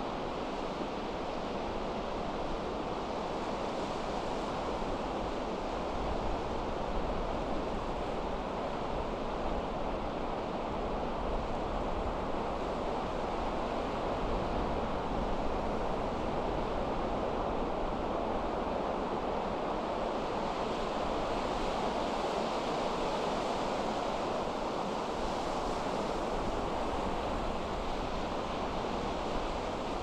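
Pacific surf washing steadily onto a beach in a strong wind, with wind buffeting the microphone in a low rumble.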